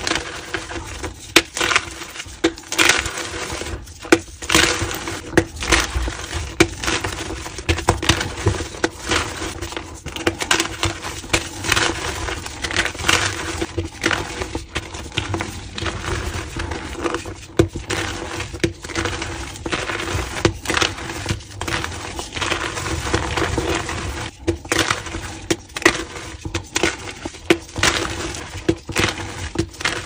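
Hands crushing and crumbling blocks of homemade plain gym chalk: a continuous run of dry crunches and crackles, broken by irregular sharper snaps as chunks break apart.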